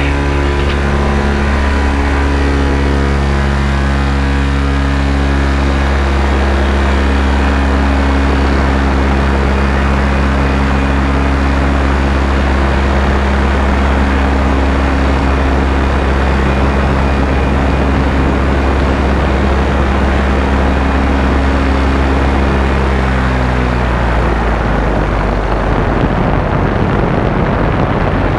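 Paramotor engine and propeller running steadily at cruise, with a rushing noise over the engine note. About three-quarters of the way in the engine slows and its note drops lower.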